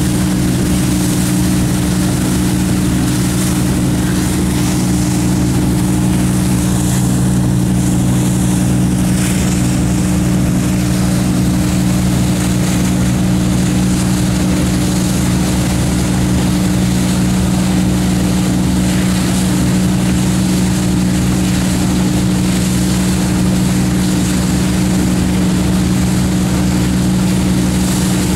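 Wake boat's inboard engine running at a steady, even hum, with the constant rush and spray of the breaking wake beside it.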